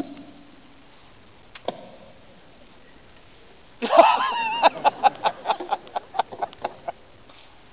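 A high voice cries out about four seconds in, then breaks into rapid laughter that pulses for about three seconds.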